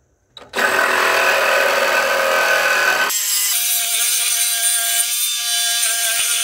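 Milwaukee M12 Fuel Hackzall cordless reciprocating saw starting about half a second in and cutting through the old steel snowblower jack shaft to remove it. About three seconds in, the sound thins and a steady high-pitched ringing comes through the rasp of the blade.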